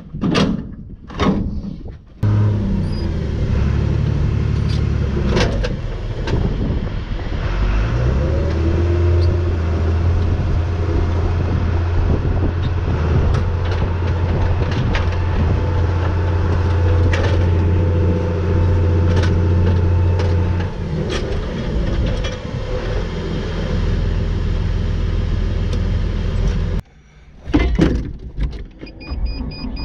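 A few knocks of metal farm equipment, then a diesel engine of farm machinery running steadily. From about eight seconds in it settles into a heavier, deeper drone that eases off around twenty-one seconds in. It cuts out briefly near the end, followed by more knocks.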